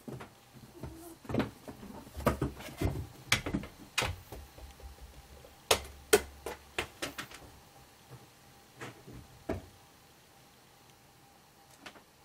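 Irregular knocks, taps and scuffs as a cat paws a small toy ball on a cat-tree basketball hoop and grips the carpeted post. The knocks come thick for the first several seconds, then only a few scattered taps.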